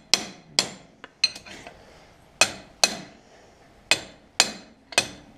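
Hammer striking a steel drift held against a tapered roller bearing on a tractor wheel spindle, about eight sharp metal-on-metal blows, often in pairs, each with a short ring: the new bearing being driven onto the spindle, slowly seating.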